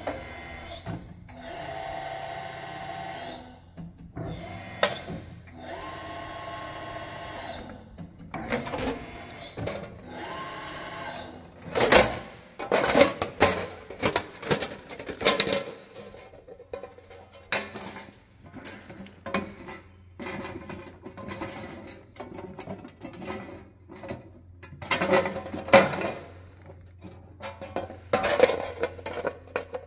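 Lima SL-3 CNC sheet-metal rolling machine running its rolls in four or five short start-stop runs, each a steady motor whine. From about twelve seconds in, loud clattering and rattling of thin sheet metal.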